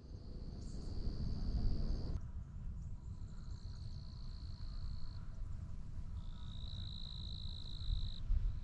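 Calling insects: three high, steady trills, each about two seconds long, over a constant low rumble.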